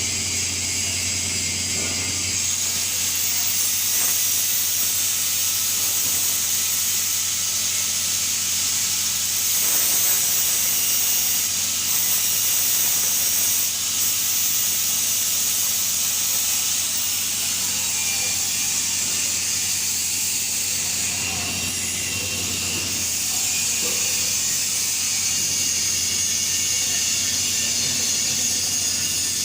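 TIG (gas tungsten arc) welding arc running: a steady hiss with a low hum underneath.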